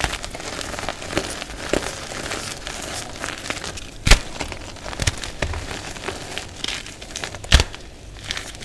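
Block of reformed gym chalk being crushed and crumbled by hand: steady dry crunching and crackling, with two sharp snaps, about four seconds in and near the end, as pieces break off the block.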